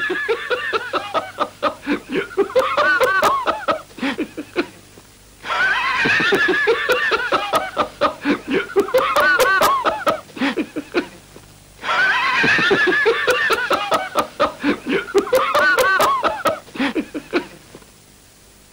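Laughter in three long, loud bouts, each starting high and breaking into rapid ha-ha pulses, the bouts much alike.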